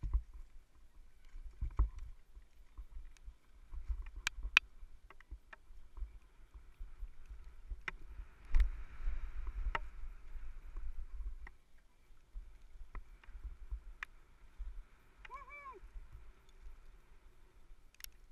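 Downhill mountain bike descending a bumpy dirt trail, picked up by a helmet-mounted GoPro: an uneven low rumble of wind and trail vibration, broken by sharp knocks and clicks as the bike rattles over bumps. A short squeal that rises and falls is heard about fifteen seconds in.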